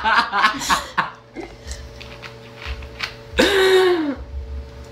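Laughter in the first second, then about three and a half seconds in a girl lets out a single loud burp with a falling pitch, from the cola she has been drinking.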